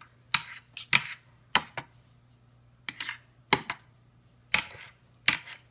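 Three-bladed metal meat claws clicking and scraping against a glass baking dish while shredding cooked pork: about ten sharp, uneven clicks.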